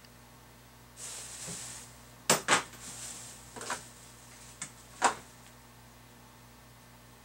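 Hand tools being handled off-frame: a brief scraping rustle about a second in, then about five sharp, irregular clicks and knocks.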